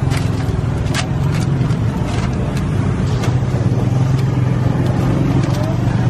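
A steady low engine hum, with a few short light clicks over it.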